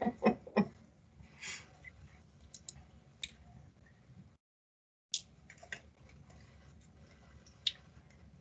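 Scattered sharp clicks and light knocks, like mouse and keyboard clicks at a computer, picked up by a call microphone over a low hum. The sound drops out completely for under a second about halfway through.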